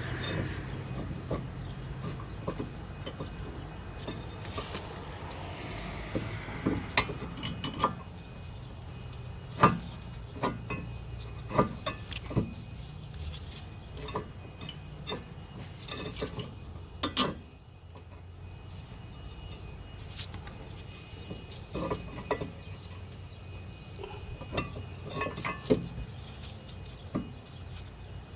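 Metal brake parts and hand tools clinking and knocking irregularly while a car's rear disc brake caliper and pads are handled during a pad change.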